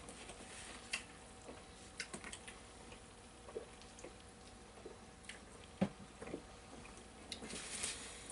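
Quiet eating sounds: soft chewing and scattered small clicks and taps as pizza is eaten from cardboard boxes, with one sharper knock about six seconds in.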